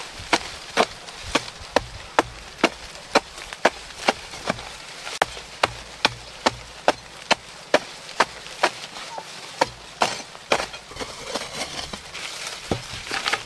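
A hand digging tool striking dry, stony soil about twice a second, loosening clods and loose earth. The strikes stop near the end, giving way to softer scraping and rustling of soil.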